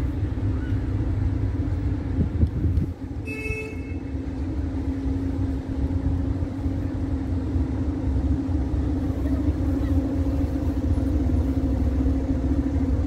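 SM42 diesel-electric locomotive's engine running steadily as it moves off slowly with its train, slowly growing louder. A brief high tone sounds about three seconds in.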